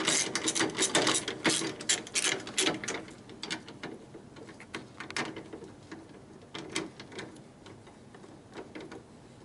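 Ratchet wrench clicking as 10 mm bolts are tightened. The clicks are rapid and continuous for about three seconds, then come in short scattered strokes.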